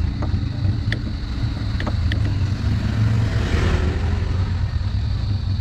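A steady low rumble under a few light clicks from hands working at the handlebar controls and cables; the clicks fall in the first two seconds.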